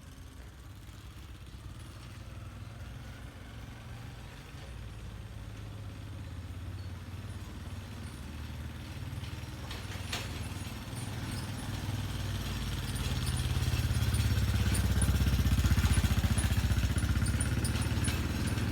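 An engine running, a low steady rumble that grows gradually louder and is loudest about fifteen seconds in, with a single sharp click about ten seconds in.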